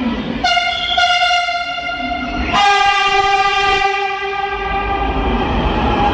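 Pune Metro train whining as it moves through the station. A high whine made of several tones starts about half a second in; a louder one joins a little past halfway and slowly drops in pitch, as when the train slows.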